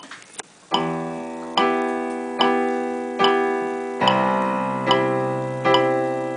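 Digital piano playing repeated block chords, one about every 0.8 seconds, each left to ring and fade; a low bass note joins about four seconds in. Two sharp clicks come just before the first chord.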